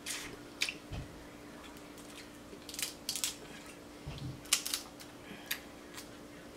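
Snow crab leg shells being snapped and cracked apart by hand: a scattering of short, sharp cracks and clicks, with soft wet sounds of the meat being sucked out between them.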